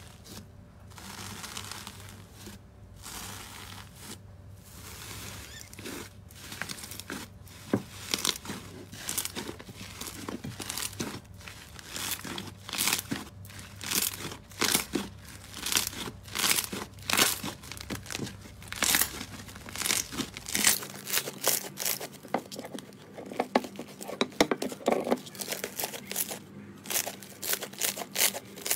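Slime being squeezed, pressed and pulled by hand, giving a run of sticky crackles and pops that come thicker and louder after the first several seconds.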